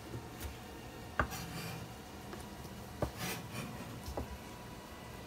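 Chef's knife chopping grilled chicken breast on a plastic cutting board: a few sharp knocks of the blade on the board at uneven intervals, the loudest a little over a second in, with faint scraping of the blade through the meat between them.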